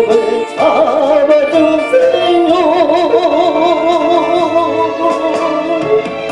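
A man singing a Korean gugak-style gospel song over instrumental accompaniment. After a few short notes, he holds one long note with a wide, regular vibrato from about two and a half seconds in.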